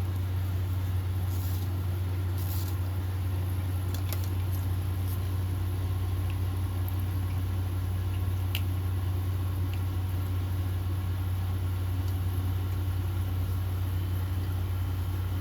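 A steady low hum throughout, with a few faint soft strokes of a comb through wig hair.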